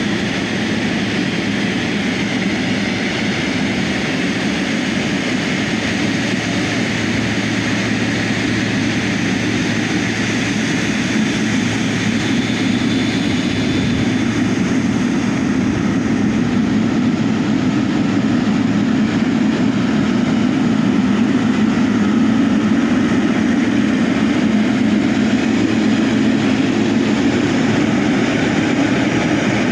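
Jet engines of an Airbus A330 airliner running on the ground, a steady loud noise that grows a little louder in the second half.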